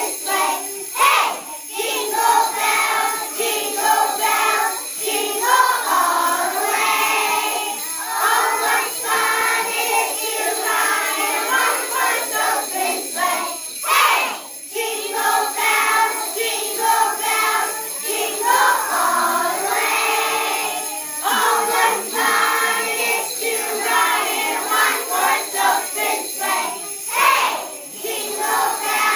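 A group of young children singing together while jingle bells are shaken continuously.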